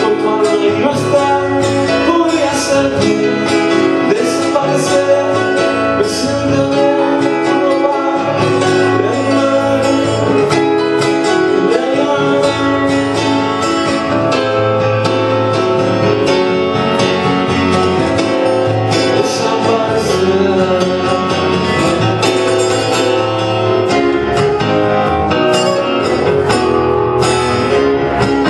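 A man singing to a strummed acoustic guitar in a live performance.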